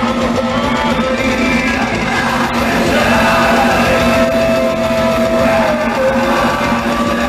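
Progressive extreme metal band playing live, with distorted guitars, drums and vocals; a sung note is held for about three seconds in the middle.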